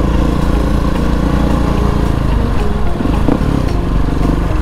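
Single-cylinder dirt bike engine running at a steady throttle while riding.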